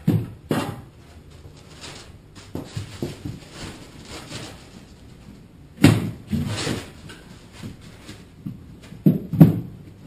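Irregular knocks and thumps of a person moving about on his knees on an OSB floor inside a hollow wooden box and handling the foam panels. The loudest bang comes about six seconds in, and two more come close together near the end.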